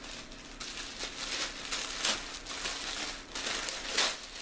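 Wrapping crinkling and rustling in irregular bursts as a small gift is unwrapped by hand, with a few louder crackles along the way.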